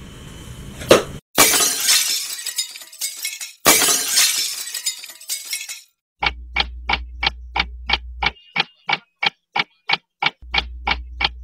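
Two crashing sound effects like shattering glass, each cutting in sharply and fading over about two seconds. About halfway through they give way to a fast clock-ticking sound effect, about three to four ticks a second, with a low hum under part of it.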